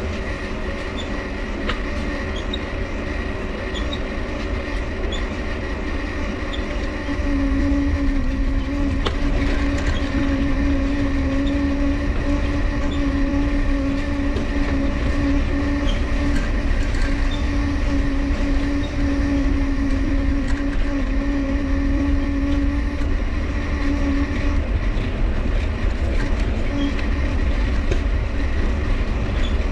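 Mifa folding bike being ridden, its dynamo whining steadily over the rumble of the tyres, with faint regular ticks that fit the squeaking cranks. The dynamo's hum grows louder about 7 s in, as the bike speeds up, and drops back near the end.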